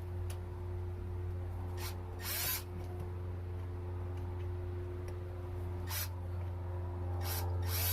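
Short scraping, hissing noises of hand work on a light fixture's mounting bracket and screws, several times over a steady low hum.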